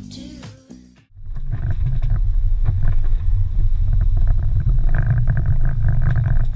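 Cab noise inside a small Japanese kei truck on the move: a steady low rumble of engine and road noise, coming in about a second in as the car-stereo music cuts off.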